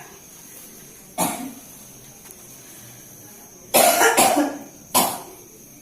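A person coughing: one cough about a second in, a quick pair of coughs just before the four-second mark, and another a second later. The cough belongs to a patient troubled by a cough along with stomach acid.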